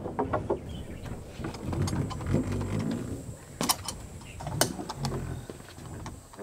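Footsteps of a person walking with a large woven bamboo back basket, with short creaking clicks; two sharp clicks come about a second apart in the middle.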